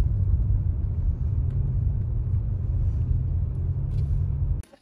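Steady low rumble of a car's engine and road noise heard from inside the cabin while driving. It cuts off abruptly near the end.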